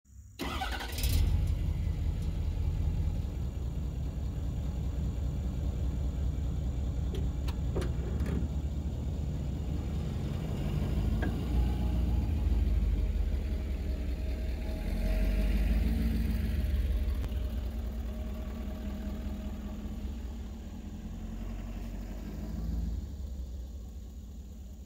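Ford 6.7 L Power Stroke V8 turbo-diesel in a 2015 F-250 running with a deep, steady rumble as the truck moves slowly past, swelling around the middle and fading near the end.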